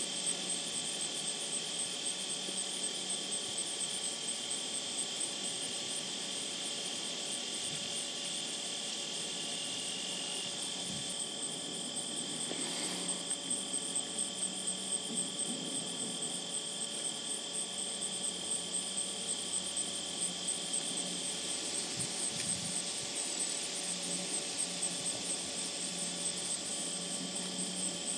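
Steady, high-pitched chorus of insects trilling and buzzing, with a shrill fine-pulsing band on top and a lower steady whine beneath, over light background hiss.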